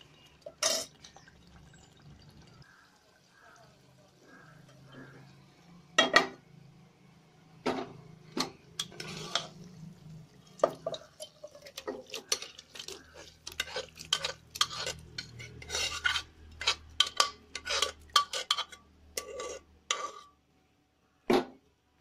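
A metal spoon clinking and scraping against cooking pots as thick curry is scooped out of an aluminium pressure cooker into a nonstick pan and stirred. A few separate knocks come first, then about seven seconds in a dense run of clinks and scrapes that stops shortly before the end.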